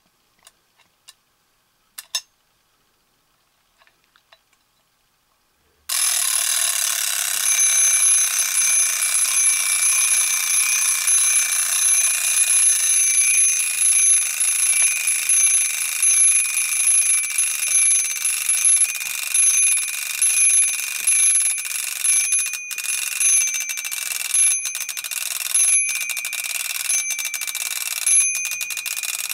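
1960s Creative Playthings wind-up alarm clock: a few light clicks as the alarm-set knob is turned. About six seconds in the alarm goes off suddenly, its hammer ringing the twin bells in one continuous ring that stutters with short breaks near the end.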